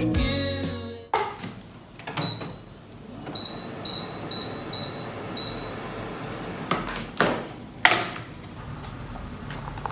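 Room sounds: a few sharp knocks and clicks, and a quick run of about six short high-pitched electronic beeps a few seconds in.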